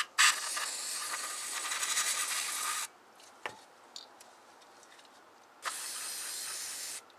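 Aerosol carburetor cleaner sprayed through the fuel passages of a small-engine carburetor: two steady hissing bursts, the first about two and a half seconds long, the second starting just past halfway, with a couple of faint clicks in the pause between.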